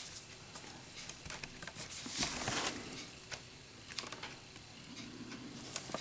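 Faint handling noise: soft rustling with a few scattered light clicks and taps.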